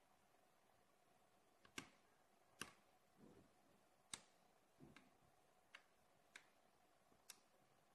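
Magnetic rings snapping onto steel balls with sharp metallic clicks as a ball-and-rod magnet model is pressed and adjusted by hand: about seven single clicks at uneven intervals, with a couple of softer rubbing sounds between them.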